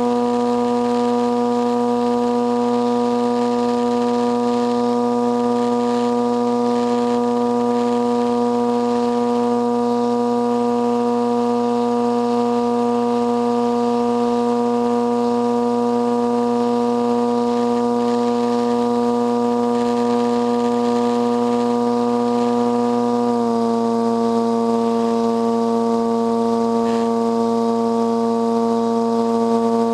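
Radio-controlled airplane's motor and propeller running at steady throttle in flight, heard on board: a steady droning tone with a stack of overtones. The pitch steps down slightly about 23 seconds in.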